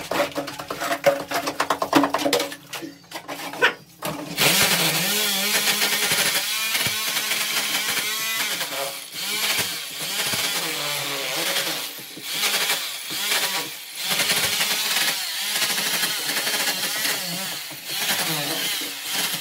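Electric rotary hammer in chisel mode chipping old plaster off a brick wall. After a few knocks, it starts about four seconds in and runs loudly in long stretches broken by brief pauses.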